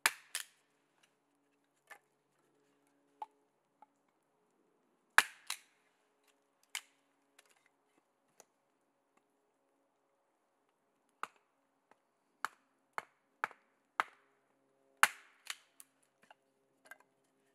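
Husqvarna multi-purpose axe splitting kindling on a wooden chopping block: sharp, separate wooden knocks and cracks. The loudest come at the start, about five seconds in and about fifteen seconds in, with a run of about six knocks half a second apart shortly before the last loud one.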